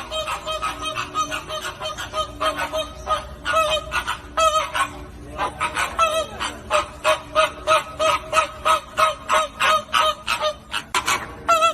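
A flock of flamingos honking: a dense run of short calls, several a second, overlapping at first and falling into a more even rhythm about halfway through.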